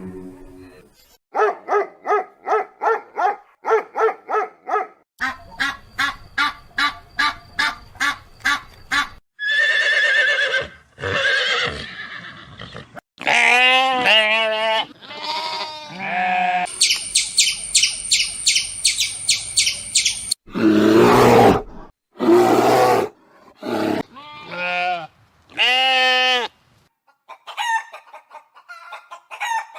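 Farm animal calls from several short clips in turn: rapid runs of short pulsed calls in the first third, then long wavering bleats of goats, separated by abrupt cuts.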